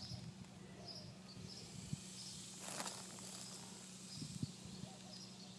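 Faint background: a steady low hum with small high chirps repeating every second or so, and a brief rustle about three seconds in.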